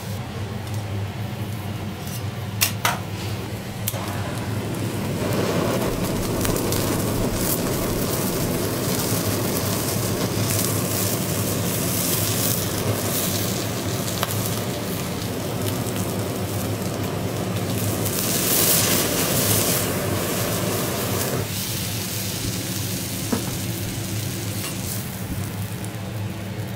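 Lobster half sizzling on a steel teppanyaki griddle under a steady low hum, with a few sharp metal clicks early on. For about fifteen seconds in the middle, a handheld kitchen blowtorch runs as it flames the lobster meat, its noise swelling near its end before cutting off.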